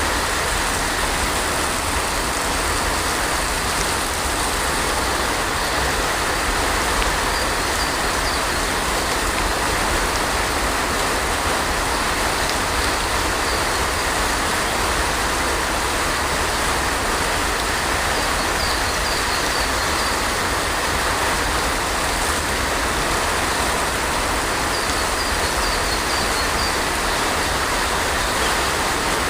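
Heavy rain falling steadily, a dense even hiss over a constant low rumble. A few faint high chirps come through it now and then.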